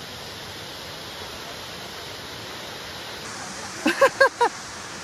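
Steady rush of a waterfall, an even wash of falling water. About four seconds in, a person's voice calls out a few short syllables over it.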